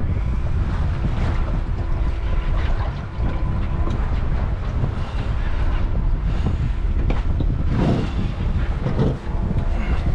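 Heavy wind rumble on the microphone aboard a fishing panga, over steady boat and water noise.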